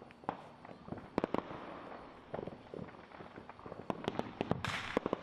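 Fireworks going off across town: scattered sharp bangs and pops from several places, thickening into a quick run of bangs with a short crackling hiss near the end.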